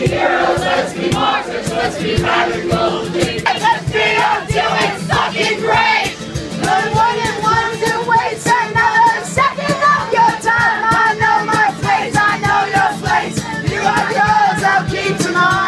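Acoustic guitar strummed while a man sings and a crowd sings along with him. There are long held notes in the second half.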